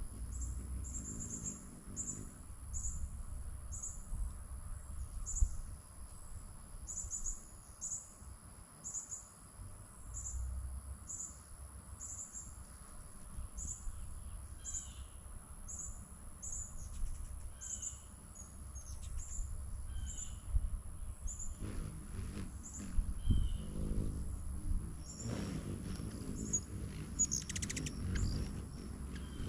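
Short high bird chirps repeating about once or twice a second, with a few lower chirps mixed in midway, over a low rumble that grows stronger in the last third.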